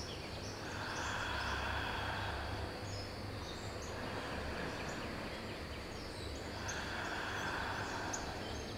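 Slow, deep breaths through the nose, two long ones of about two seconds each, over steady background ambience with faint, scattered bird chirps.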